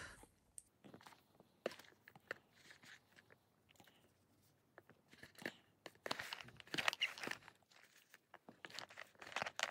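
Faint rustling and light clicks of small elastic hair ties being handled and sorted by hand, with a few louder bursts of handling about six to seven seconds in and again near the end.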